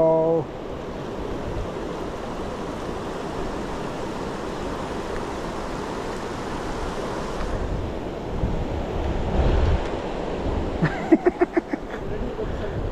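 Rushing river water, a steady even noise. Wind buffets the microphone with a low rumble about eight to ten seconds in, and a quick run of short sharp sounds comes near the end.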